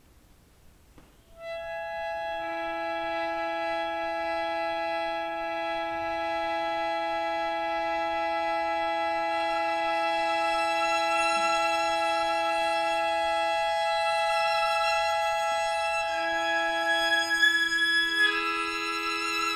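A small ensemble with a violin holding long, steady notes together as a sustained chord. It enters about a second and a half in after near silence. The lowest note stops about two-thirds of the way through and comes back, and the chord shifts near the end.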